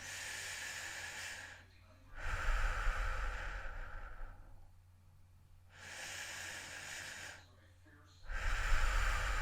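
Slow, heavy human breathing: four long breaths, alternating a quieter, airy one and a louder, rougher one, each about two seconds long.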